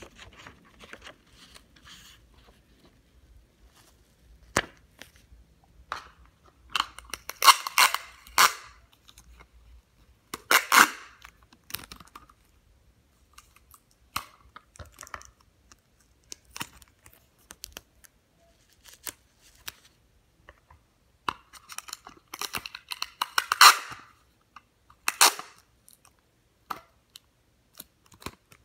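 Sticky tape being pulled off the roll and torn, in several short rips, with scattered light clicks and taps between.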